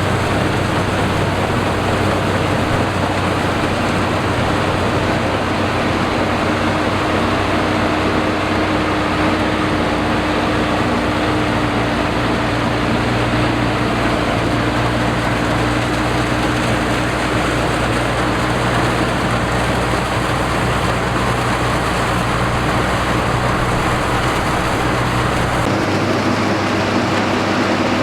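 Rice combine harvester running at work: a loud, steady engine and machinery din with a constant hum. Near the end the low rumble drops away and the hum shifts in pitch.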